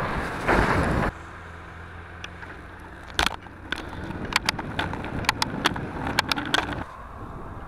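Bicycle riding along a town road, heard through a bike-mounted camera: a low steady hum with a string of sharp, irregular clicks and rattles from about three seconds in. It opens with a second of loud rushing noise that cuts off suddenly.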